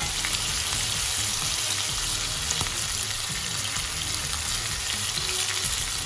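Raw chicken pieces frying in hot oil in a non-stick frying pan: a steady sizzle with scattered small crackles.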